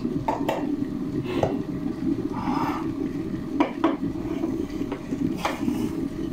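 Clinks and knocks of kitchen containers being handled: a metal powdered-milk tin, its lid and a plastic cup, including a quick run of three knocks a little past halfway. A steady low hum runs underneath.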